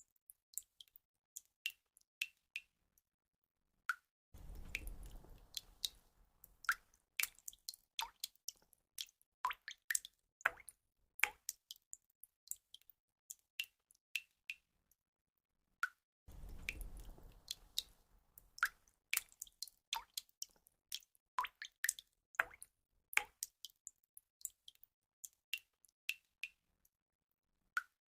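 Water drops falling and plinking one at a time at uneven intervals, a few each second, each a short pitched plip. Twice, about four seconds in and again about sixteen seconds in, a low noise swells under the drops for two or three seconds.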